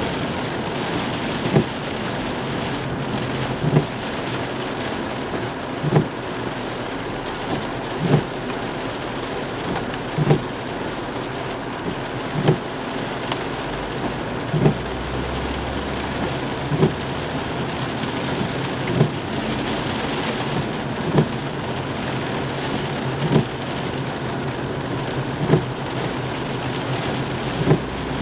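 Heavy rain falling on a car's roof and windshield, heard from inside the cabin. A windshield wiper thumps at the end of its sweep about every two seconds. A low rumble comes up briefly about halfway through.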